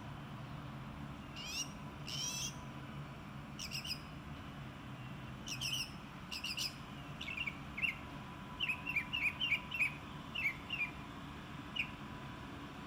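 Songbirds chirping: short phrases of two or three quick high notes repeated every second or two, then a rapid run of short chirps in the second half, over a steady low hum.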